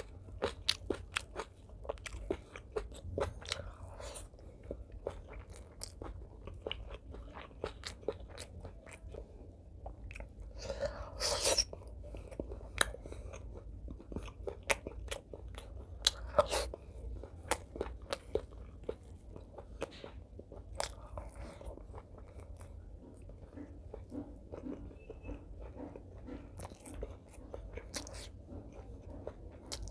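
Close-miked mouth sounds of eating braised pork belly and rice with fried garlic: steady chewing with wet smacks and small crunches, and a louder crunchy bite about eleven seconds in.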